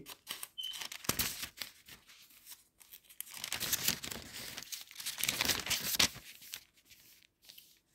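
Thin Bible pages being leafed through, a papery rustling and crinkling that is heaviest in the middle and dies away near the end.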